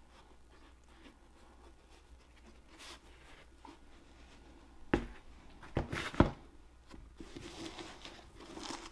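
Faint room tone at first, then sneakers being handled on a tabletop: a few sharp knocks a little past halfway, the loudest about six seconds in, followed by soft rustling.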